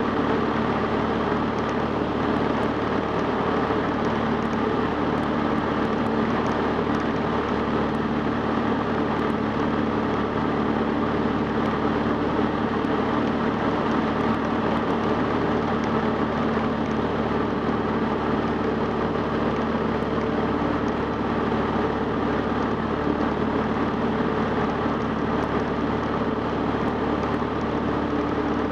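Cessna 150's Continental O-200 four-cylinder engine and propeller droning steadily in level cruise flight.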